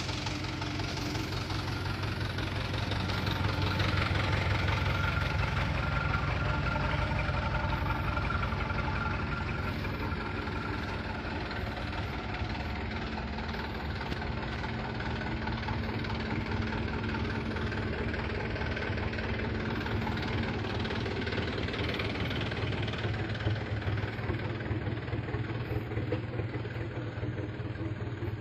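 Truck's diesel engine running steadily at low revs, its rapid low pulse continuing without change.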